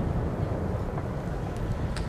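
Low rumble of wind buffeting the microphone between fireworks bursts, with two faint pops of distant fireworks, one about a second in and one near the end.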